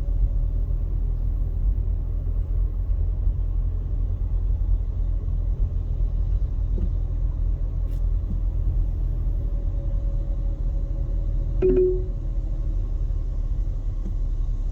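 Car driving, heard from inside the cabin: a steady low road and engine rumble. A short pitched sound cuts in briefly near the end.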